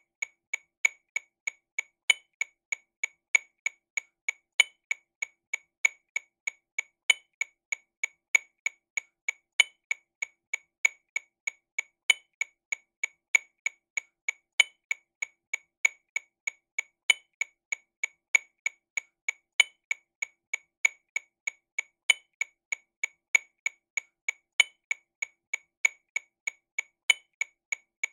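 TAMA Rhythm Watch RW200 metronome click sounding sixteenth notes at 48 BPM: an even train of short, sharp clicks about three a second, with a brighter accented click recurring at regular intervals.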